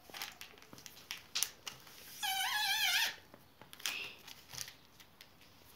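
Newspaper sheets being handled and folded, with soft crackling paper rustles. About two seconds in, a brief high, wavering cry lasting under a second stands out above the paper sounds.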